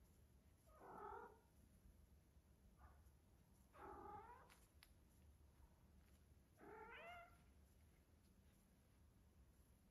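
Siberian cat giving three short, soft meows about three seconds apart, with a tiny chirp between the first two.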